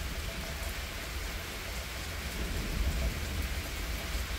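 Steady rain falling hard, with a low rumble of thunder underneath that swells a little midway.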